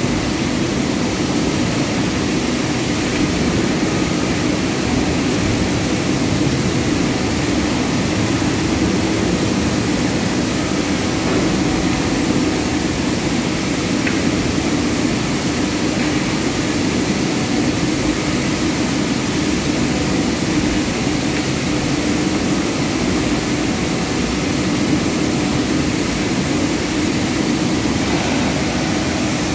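Palm oil mill machinery running, with a large rotary drum close by: a loud, steady industrial din with a low, even hum underneath.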